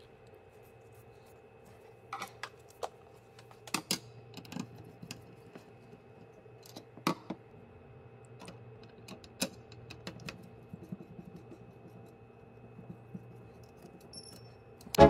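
Scattered sharp clicks and light knocks of a screwdriver, wires and a mains plug being handled on a workbench while wires are fastened into a switching power supply's screw terminals, over a faint steady hum. Music cuts in loudly at the very end.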